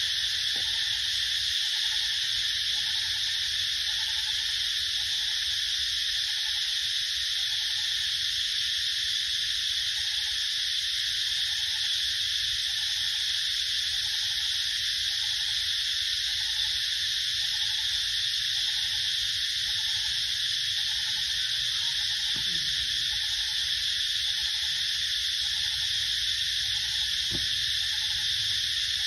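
Steady, loud chorus of insects in a forest, with a short low note repeating a little more than once a second beneath it.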